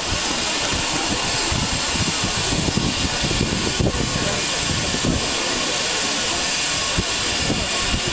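A dense crowd talking over one another in a steady murmur of voices, over a constant hiss.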